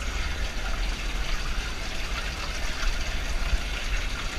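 Water gurgling steadily as it flows through the bottom of a sewer well, fed by a hose-flushed drain pipe, with a low rumble underneath.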